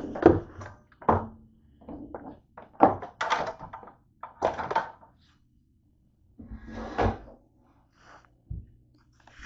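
Handling noise from a small camera being picked up and repositioned by hand: an irregular string of knocks and thunks with rubbing and scraping. It pauses briefly after the middle, then another thud follows.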